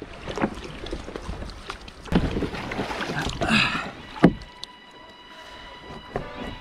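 Kayak paddling on open water: irregular paddle splashes and water washing against the hull, with one sharp knock about four seconds in.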